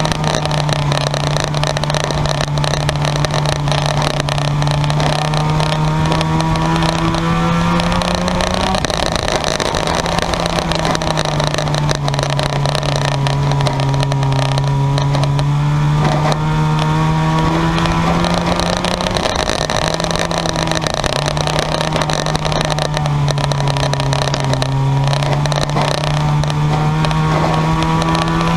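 Race car engines running hard around the track in a junkyard car race. The engine note holds steady and climbs in pitch roughly every ten seconds before dropping back.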